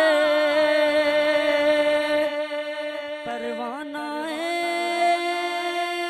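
A man's voice singing a Punjabi naat, drawing out one long held note with small ornaments, then about four seconds in sliding up to a slightly higher held note.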